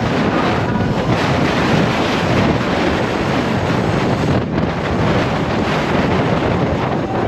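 Steady, loud rush of wind buffeting the microphone, easing briefly about four and a half seconds in.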